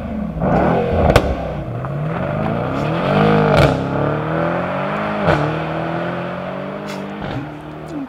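Mercedes-AMG 4.0-litre twin-turbo cross-plane V8 revving up and dropping back twice, with sharp pops as the revs fall, almost like a backfire sound. The revs then sag and the sound fades near the end.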